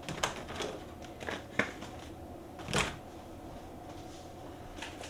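A few sharp clicks and knocks of hard tool parts being handled, then a short scraping burst just under three seconds in, as tightly stuck-together magnetic tool holder bars are worked at.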